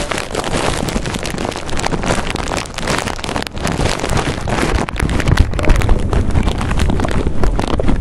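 Dense crackly rustling and crunching, a rapid jumble of small clicks and crackles, with a low rumble building from about halfway through.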